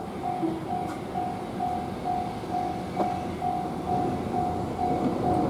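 Japanese railway level-crossing warning bell ringing, a single electronic tone repeating about twice a second, over a steady low rumble of trains and traffic.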